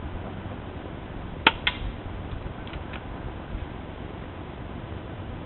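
SIG SAUER P226 spring airsoft pistol firing once: a sharp snap about one and a half seconds in, with a second, fainter click a moment after it, over a steady background hiss.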